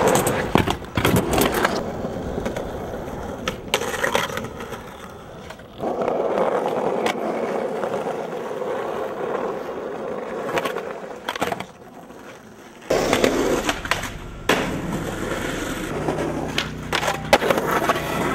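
Skateboard wheels rolling on concrete and asphalt, with repeated sharp clacks and slaps of the board popping and landing tricks. A low steady hum comes in near the end.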